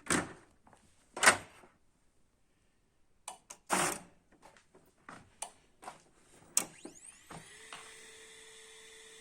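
Canon i-SENSYS MF4410 laser printer powering up: several sharp clacks, then, about seven seconds in, a steady hum sets in with a whine rising in pitch as something spins up. The 24 V DC main motor does not turn, a fault the repairer traces to the motor itself or its power supply.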